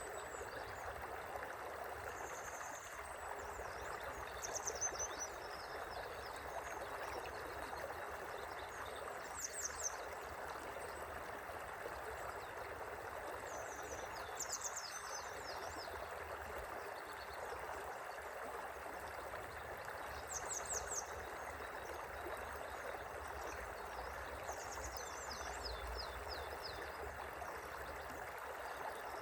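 River water flowing steadily with an even rushing sound. Short high-pitched chirping calls, each a quick run of strokes, come every few seconds.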